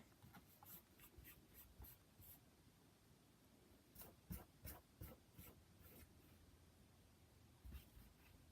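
Near silence broken by faint, short scratchy taps and clicks in small clusters, a few near the start, a louder run around the middle and a couple near the end.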